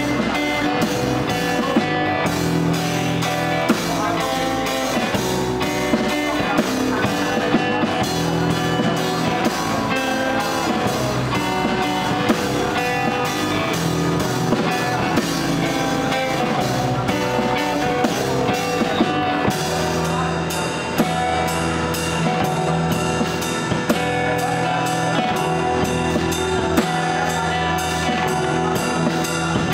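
Live acoustic band playing: two acoustic guitars over a small drum kit played with sticks. About twenty seconds in the drumming settles into a steady beat of even cymbal ticks and the low end fills out.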